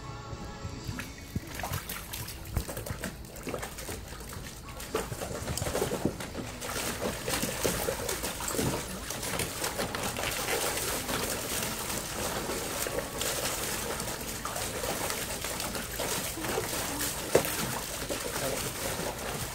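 A dog pawing and splashing water in a plastic kiddie pool. The splashing starts light and becomes steady and choppy about five seconds in, with one sharper splash near the end.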